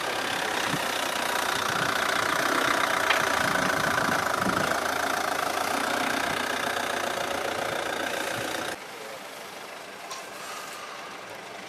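An engine idling, loud and steady, cutting off suddenly about nine seconds in, after which a fainter steady background remains.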